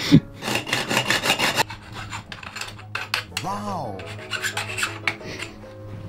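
Quick, even rasping strokes of a hand tool, about six a second, working the mountain-bike fork's cut steerer tube. There are two spells of strokes with a short grunt-like voice between them.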